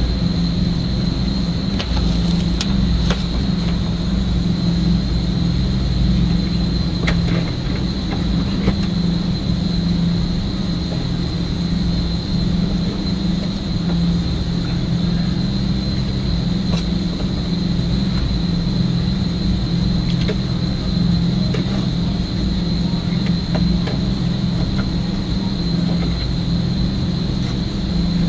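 Steady machine hum: a low drone with a constant high whine above it, broken only by a few faint clicks.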